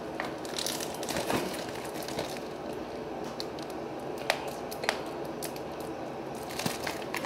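Stiff plastic shrink-wrap crinkling and crackling as it is picked at and peeled off a Blu-ray case, with scattered small clicks; the wrap is stubborn and hard to get off.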